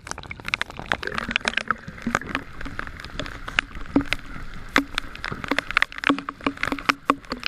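Choppy seawater splashing and sloshing in many quick, irregular splashes, with some gurgling.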